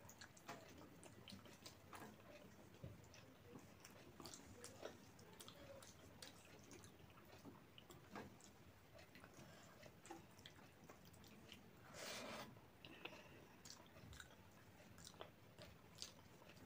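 Faint close-up chewing and soft wet mouth clicks of a person eating rice and curry by hand, with fingers mixing the rice on the plate. One brief, louder noisy burst comes about twelve seconds in.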